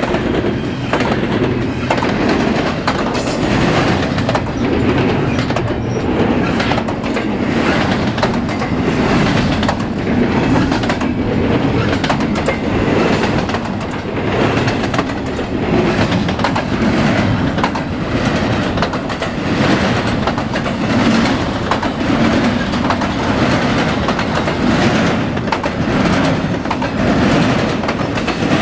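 Norfolk Southern double-stack intermodal container train rolling past: a loud, steady rumble of the well cars with their wheels clicking over rail joints.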